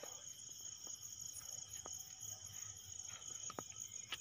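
Faint steady high-pitched insect chirring, with a few light clicks.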